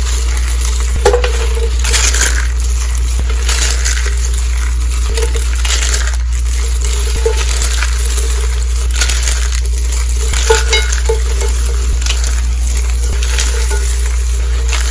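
Pink soap roses and curls being crushed, repeated crisp crunches and crumbling at irregular intervals, with a few sharper cracks.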